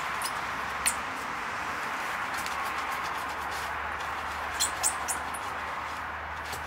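A wheel brush scrubbing a foam-covered alloy wheel: a steady swishing hiss, broken by a few short, sharp squeaks and clicks as the brush rubs against the rim and spokes, several of them close together about two-thirds of the way in.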